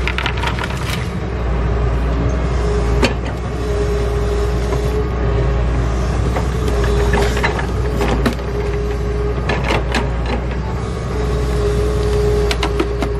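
Doosan hydraulic excavator working: its diesel engine runs steadily with a steady hydraulic whine on top. Sharp clanks and knocks come every second or two as the bucket moves and dumps mud.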